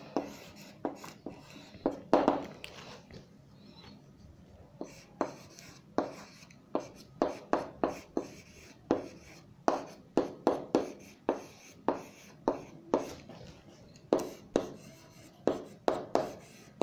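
Handwriting: a pen making a series of short, irregular scratching strokes and taps, sparse for a few seconds and then coming more quickly, around two a second.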